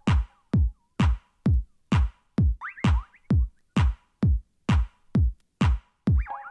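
Electronic dance music: a drum-machine kick drum beats steadily at about two hits a second, four-on-the-floor. Short, high, chirping synth phrases come in about a third of the way through and again at the end.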